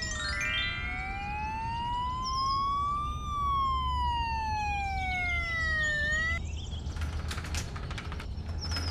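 Police car siren sound effect wailing slowly, one long rise then one long fall, over a low steady engine hum, with a short rising sweep of tones near the start. The siren stops about six and a half seconds in, and a clattering rattle follows, fitting a roller garage door coming down.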